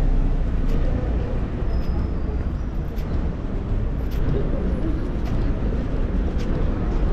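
City street traffic noise: a steady low rumble of vehicles going by on the road.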